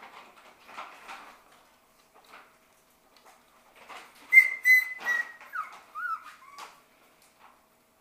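Shetland sheepdog puppy whining: a few high, thin whimpers with sliding pitch about halfway through, after faint scuffling.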